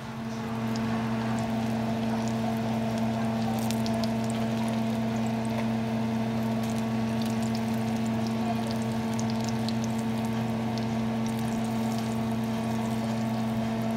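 Hot oil sizzling and crackling around a breaded mozzarella stick deep-frying in a skillet, with a steady low hum underneath.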